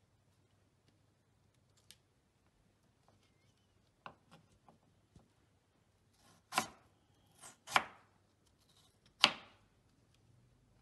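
Chef's knife cutting a peeled potato on a wooden cutting board: a few faint taps, then separate chops through the potato onto the board, the three loudest in the second half, each a little over a second apart.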